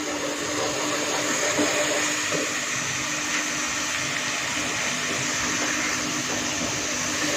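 Onions and ginger-garlic paste frying in hot oil in a pot, a steady sizzle that jumps up just after a knock of the spoon on the pot and holds.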